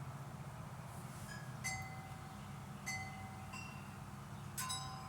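Wind chimes ringing now and then: a handful of scattered metallic strikes with short ringing tones, clearest near the end, over a steady low hum.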